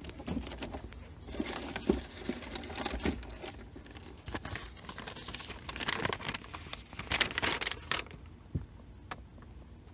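Papers rustling and crinkling, with small clicks and knocks, as someone searches through documents. It dies down about eight seconds in, leaving only a few faint clicks.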